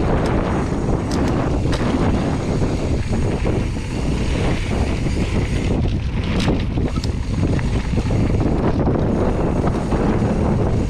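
Wind buffeting an action camera's microphone during a fast mountain bike descent, over the rumble of tyres rolling on a dirt trail. A few brief sharp rattles from the bike hitting rocks, about a second in and again around the middle.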